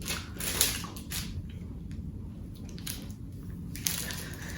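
A person chewing a bite of packaged Dutch apple pie: soft, faint chewing noises, a few in the first second and more about three seconds in.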